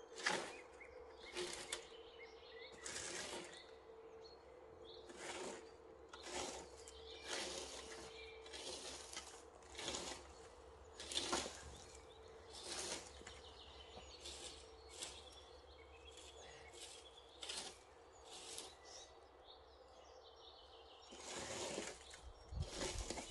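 Repeated short scraping, rustling strokes, irregular, about one a second, over a faint steady hum.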